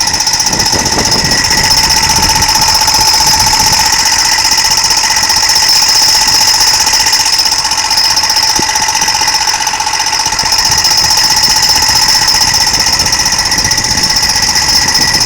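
Jeep Grand Cherokee giving off a loud, steady, high-pitched whine with a fast buzz in it. The owner takes it for the fan and not the transfer box.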